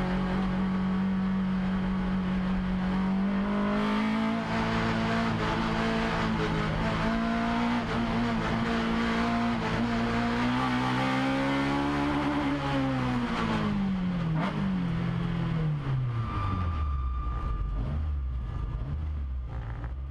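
Race car's engine heard from inside the cabin, pulling hard at high revs with its pitch wavering and rising a little as the driver works through a wet slalom. From about 13 seconds in the pitch falls steadily as the car slows, settling into a low, steady idle-like hum for the last few seconds.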